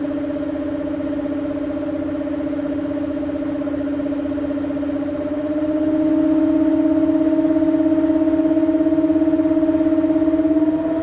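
Arctic Cooling BioniX F120 120 mm PC fan running with a loud, steady hum made of two tones. About five seconds in, the hum steps up a little in pitch and grows louder with a fast pulsing, then drops back in loudness near the end. The owner finds this hum unusually loud for the fan and suspects it may be defective.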